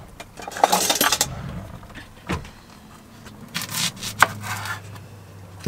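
A utensil drawer being rummaged through, then a kitchen knife cutting into an onion on a wooden cutting board, with scraping and a few sharp knocks of the blade on the board.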